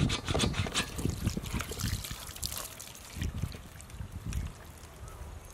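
Water from a hand-pumped drinking-water jug trickling and splashing over a snakehead fish as it is rinsed, heaviest in the first three seconds and thinner after.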